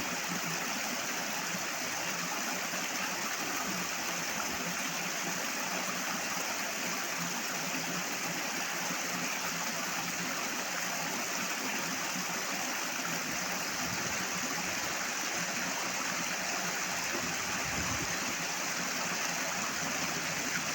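Flowing water rushing steadily, a loud, even noise without breaks.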